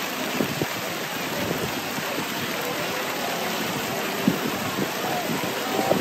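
Outdoor crowd ambience: faint voices of passers-by over a steady hiss.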